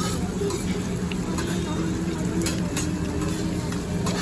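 Hibachi restaurant din: a steady low hum and an even hiss of food frying on the griddle, with scattered clinks of utensils and faint background chatter.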